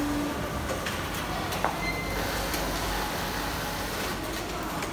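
Steady din of a garment-factory sewing floor with many industrial sewing machines running at once: a low, even machine rumble with scattered light clicks and a single knock about one and a half seconds in.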